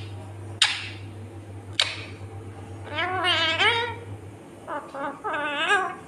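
Indian ringneck parakeet giving two bouts of warbling, voice-like chatter, one around the middle and one near the end, after two sharp clicks in the first two seconds.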